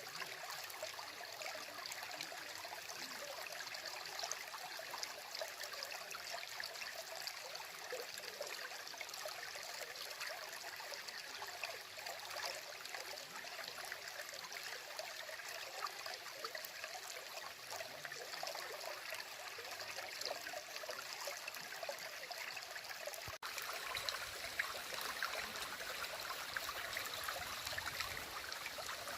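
Stream babbling and trickling over stones, a steady rushing of water with small splashes; a brief break about 23 seconds in, after which it runs slightly louder.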